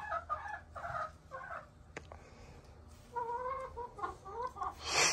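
Chickens clucking softly: a few short clucks, a pause, then a run of low clucks about three seconds in. A brief, louder noisy burst comes right at the end.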